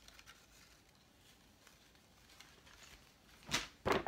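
Quiet handling, then two short crinkles of a plastic bag being rummaged, about three and a half seconds in and just before the end.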